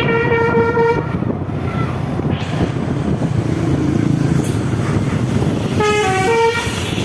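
Basuri V3 telolet bus horn: a held multi-tone chord that cuts off about a second in, then a short run of quickly changing horn notes near the end. The bus engine runs underneath.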